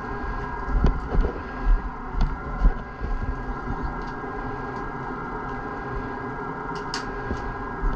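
Steady workshop machine hum with several constant tones, with low rumbling bumps in the first three seconds and a few faint ticks as a squeegee is worked around the resin-wet fibreglass lap.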